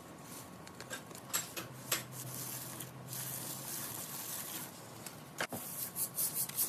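Slime being handled by hand: soft, noisy squishing with scattered sticky clicks and pops, which come thicker near the end.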